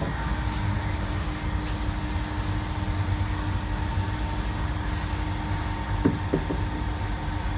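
Steady mechanical hum with a low rumble, a faint hiss and a thin steady tone, like a motor running nearby; a few short knocks about six seconds in.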